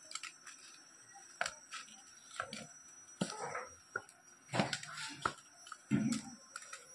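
Bare hand crumbling fresh paneer on a stainless steel plate: irregular soft knocks and scrapes as fingers and curds press against the metal, a few seconds apart and sometimes in quick pairs.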